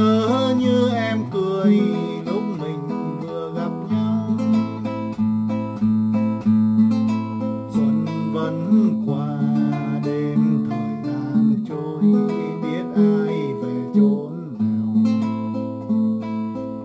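Wayne W-20 nylon-string classical guitar played fingerstyle, unamplified, in an instrumental passage: plucked melody notes over sustained bass notes.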